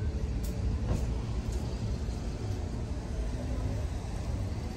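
A car driving along a street: a steady low rumble of road and engine noise, with a few faint ticks in the first two seconds.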